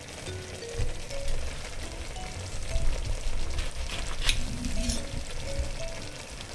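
A pot of lamb curry sizzling on the stove, with a short sharp knock about four seconds in. Light background music with a simple melody plays over it.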